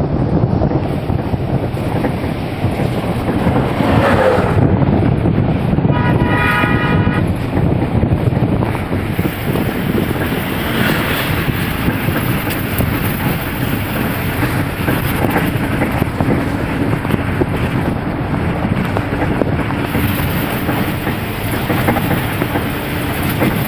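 Steady rumble of road traffic, with a vehicle horn honking once for about a second some six seconds in.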